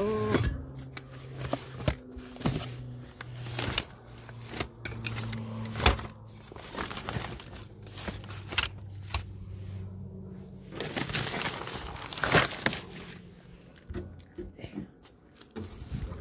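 Hands rummaging through a bin packed with cordless power tools, batteries and cords: hard plastic tools knocking and clattering, with rustling. A steady low hum runs underneath and fades out about ten seconds in.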